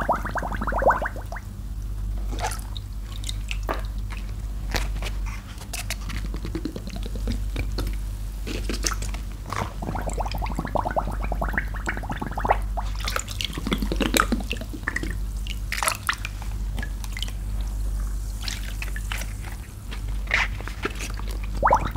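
Large soaked sponge being squeezed and squished by rubber-gloved hands in a tub of soapy water: wet squelching, sloshing and dripping, with scattered small pops and crackles from the foam, over a steady low hum.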